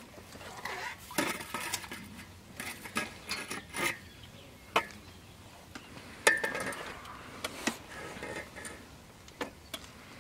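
Fishing tackle being handled after a fish is netted: irregular light clicks, clinks and knocks with brief rustling. The sharpest clicks come about five and six seconds in.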